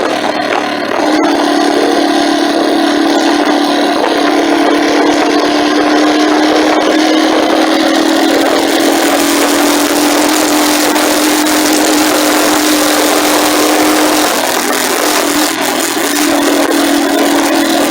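Motorcycle engine running at a steady cruise with wind and road noise, picked up by a phone on its handlebar mount. The steady engine note eases about fourteen seconds in and picks up again a couple of seconds later.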